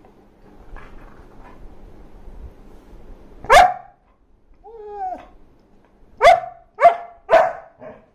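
Dog barking: one loud bark about three and a half seconds in, a short whining call about a second later, then three barks in quick succession near the end.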